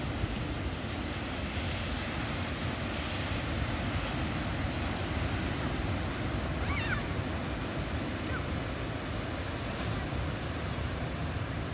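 Ocean surf breaking and washing up the beach in a steady rush, with wind rumbling on the microphone. A couple of faint short high chirps come about seven and eight seconds in.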